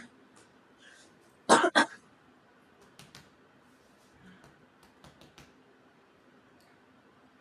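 Two short, sharp throat sounds from a woman in quick succession, a cough-like or throat-clearing burst, followed by a few faint clicks.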